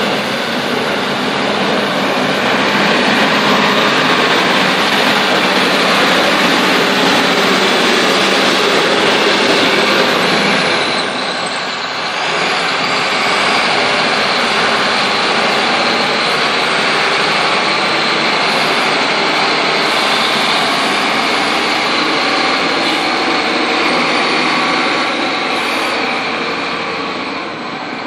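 Case 821B wheel loader's 128 kW diesel engine running under load as the loader drives and raises its bucket. It runs loud and steady, easing briefly about twelve seconds in.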